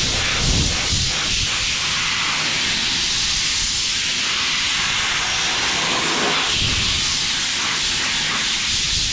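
Compressed-air blow gun hissing steadily as it blasts rinse water off a freshly sanded plastic headlight lens, with low buffeting gusts about half a second in and again near seven seconds.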